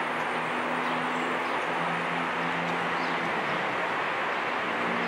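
Steady outdoor background noise with a faint low hum, like distant city traffic, unchanging throughout.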